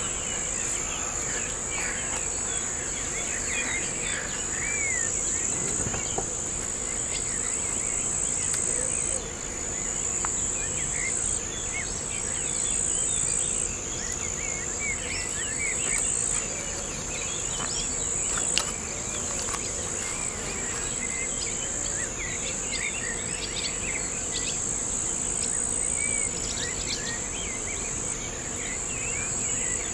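An insect trilling steadily at a very high pitch, breaking off briefly every few seconds, over many small bird chirps and calls scattered throughout. One sharp click comes a little past halfway.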